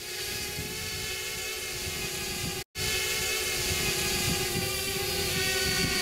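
Quadcopter drone in flight, its propellers giving a steady many-toned whine, with wind buffeting the microphone. The sound cuts out for an instant a little under three seconds in.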